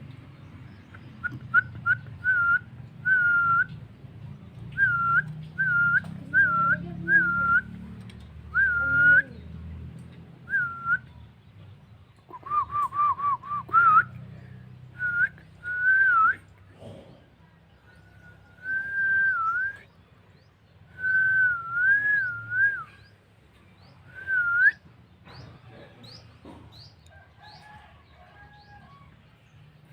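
Clear whistling to train a Javan myna: short repeated pure notes, a quick trill about halfway through, and a few longer wavering whistles. A few short high rising chirps follow near the end.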